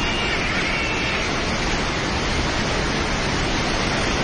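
Flooded river rushing steadily, a dense, even noise of fast, heavy water.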